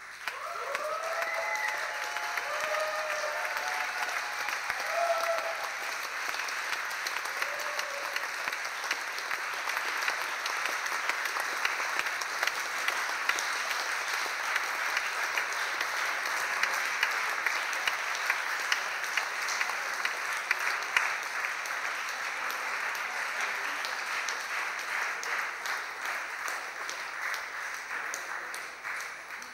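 Audience applause from a crowd, breaking out suddenly, with cheers and whoops over it in the first few seconds, then steady clapping that thins out near the end.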